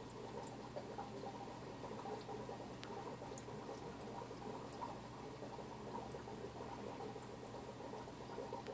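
Aquarium filter water bubbling and trickling steadily and faintly, with a low hum under it and scattered tiny clicks.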